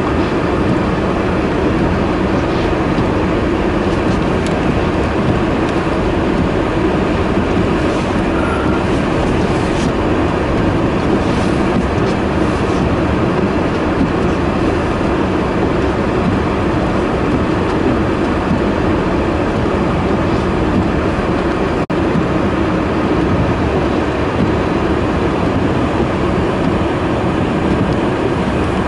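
Steady loud roar of blizzard wind on the microphone, an even rumbling noise with a brief dropout about 22 seconds in.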